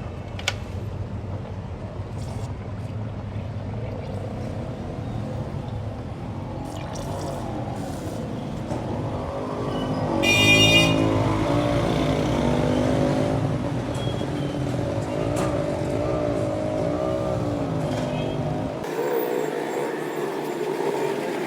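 Street traffic noise with vehicles going by, and a brief high-pitched beep about halfway through that is the loudest sound.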